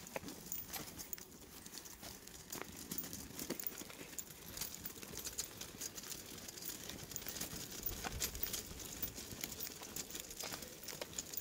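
Quiet footsteps along a tarmac path: irregular light scuffs and crackles, roughly one every half second to a second.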